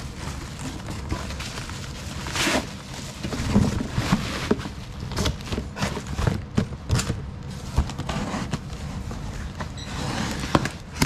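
Irregular crackling and rustling of bubble wrap and plastic packaging being handled, with sharp clicks and scrapes of cardboard box flaps being folded shut near the end.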